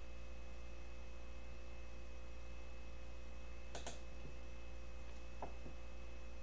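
A handful of light clicks from a computer being used, a double click a little past halfway and a few more near the end, over a steady electrical hum with a faint high whine.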